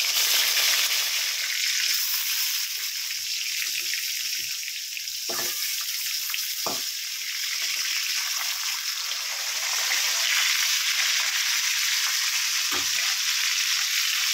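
Pieces of rohu fish sizzling steadily as they fry in hot oil in a steel kadai, with a few knocks of a metal spatula turning them.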